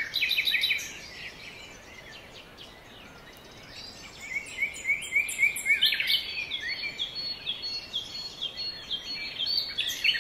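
Several small birds chirping and singing over a faint steady hiss, sparse at first and busier from about four seconds in, with quick runs of chirps.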